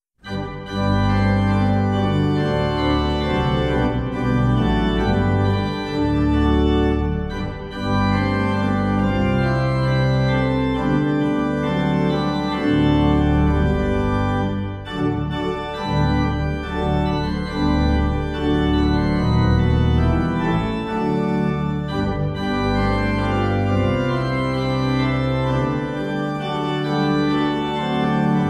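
Organ playing slow, sustained chords, with the bass notes changing every second or two; it starts about half a second in.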